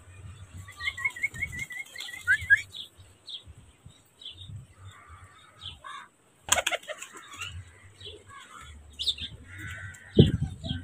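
Pigeons' wings flapping in short sudden bursts as birds in the feeding flock take off, with a loud low thump or scuffle near the end. Small birds chirp throughout, including a quick run of repeated chirps in the first few seconds.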